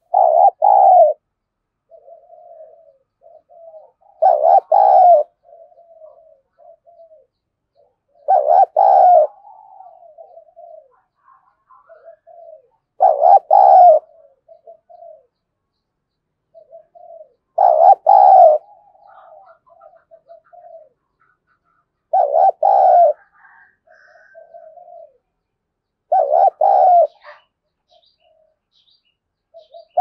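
Spotted dove cooing: a loud coo phrase about every four seconds, each lasting about a second, with softer short coos between. It is the challenge call that keepers use to provoke rival doves to fight.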